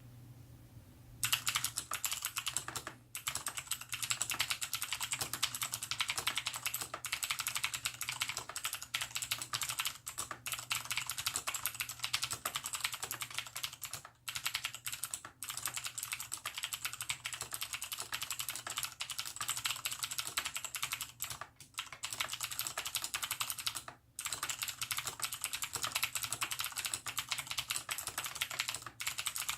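Cooler Master QuickFire XTi mechanical keyboard with clicky Cherry MX Blue switches, its sliders and stabilizers lightly lubed and its case sound-dampened, being typed on fast and continuously. The typing starts about a second in and has a few brief pauses, over a faint low hum.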